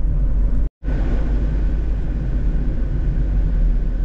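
Steady low rumble of a Mazda Roadster RF on the move: engine, tyre and wind noise. A split-second dropout to silence just under a second in, where the recording is cut, and a faint steady whine rides on the rumble after it.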